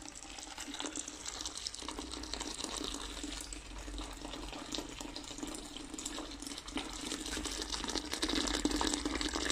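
Freshly boiled stout wort running from a brewing urn's tap in a steady stream and splashing into a plastic fermenter bucket, the transfer to the fermenter after the whirlpool. The pouring grows louder towards the end.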